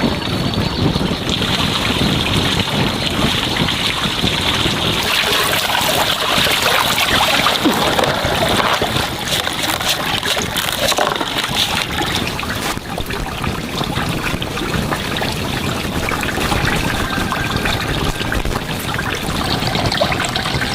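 Running water trickling and splashing steadily, with a few small knocks.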